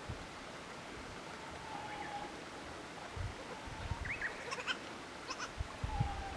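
Goat kids bleating faintly, a drawn-out call about a second and a half in and another near the end, with a few short high chirps in between.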